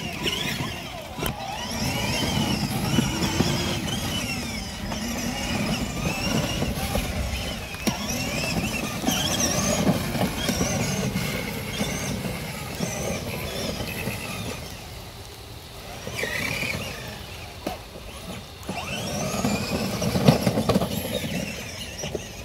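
Electric drive motor of a homemade remote-controlled ride-on toy car, run from a speed controller at full power, whining up and down in pitch as it speeds up and slows again and again, over the rumble of the plastic wheels on the ground. It eases off for a few seconds around the middle of the run.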